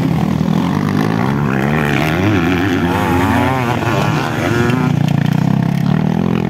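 Several motocross dirt bike engines revving on the track, their pitch rising and falling with throttle. One engine's note swoops up and down strongly for a couple of seconds midway.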